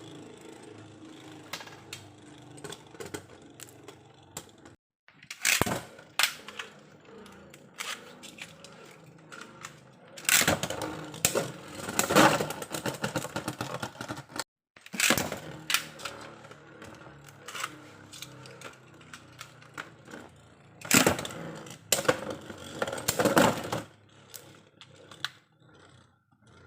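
Small hard Beyblade parts clicking and clattering in several separate bursts of sharp knocks, with quieter stretches between them.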